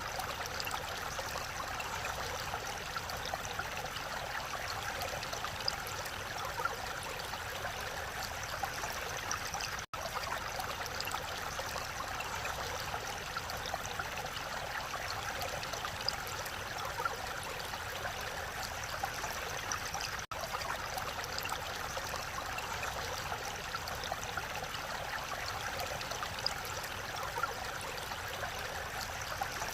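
Mountain valley stream flowing in a steady rush of water. The sound cuts out for an instant twice, about ten and twenty seconds in.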